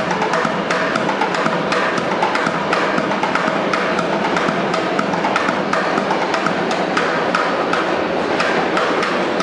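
A subway busker drumming a fast, steady rhythm of sharp, crisp hits.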